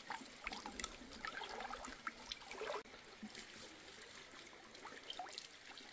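Water trickling and dripping from a folding umbrella-style mesh fish trap as it is lifted out of a shallow stream, with small splashes into the water below. The sound is faint and drops off about three seconds in.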